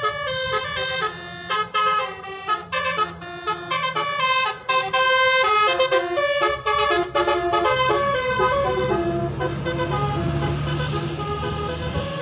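Indonesian 'telolet basuri' bus horn playing a quick tune of short, stepped notes. A bus engine's low hum is underneath, growing louder in the last few seconds as the tune fades.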